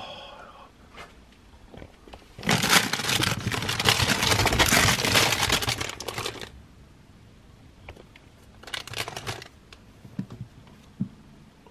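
Hands rummaging through a heap of squishy toys, their plastic wrappers crinkling loudly for about four seconds, then again briefly later on.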